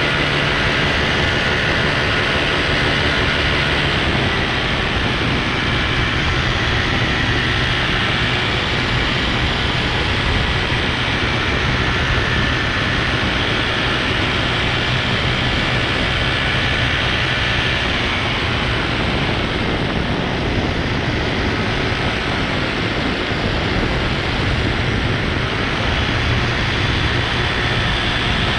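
Steady rushing noise of propellers and wind in flight, with a pitched engine hum for the first few seconds that then fades into the rush.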